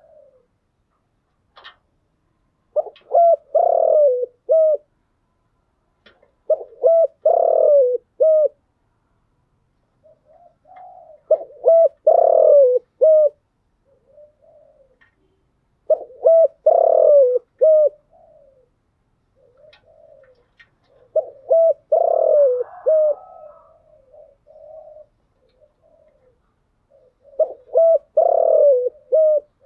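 Spotted dove cooing: six loud, repeated cooing phrases, one about every five seconds, with softer short coos between them.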